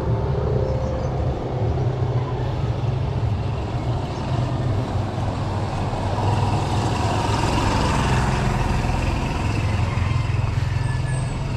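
Street traffic: motor vehicles running along the road, with a motorcycle passing close by at the start, over a steady low rumble.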